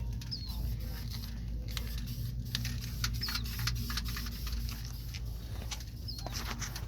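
Scattered light clicks and taps, like parts and hand tools being handled during suspension work, over a steady low hum. A bird chirps briefly three times.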